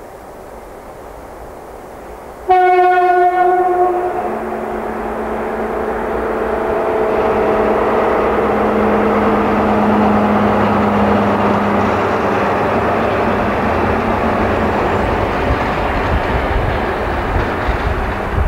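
DR class 202 diesel-hydraulic locomotive sounds its horn once, about a second and a half long, about two and a half seconds in, then its engine noise grows louder as it runs past with a passenger coach.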